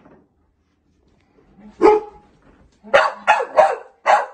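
A dog barking: one bark about two seconds in, then four quick barks in a row near the end.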